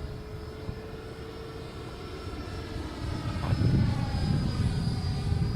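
Electric ducted-fan RC jet flying, its fan giving a steady high whine. It grows louder about three seconds in as the jet passes close.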